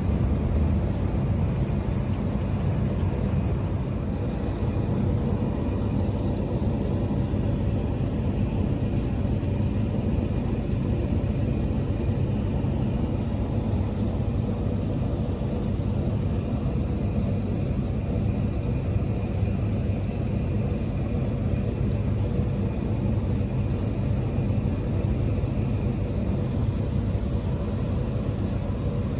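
Steady low rumble of a diesel railcar running along the line, heard from inside the car: engine and wheels on rail, with no breaks or changes.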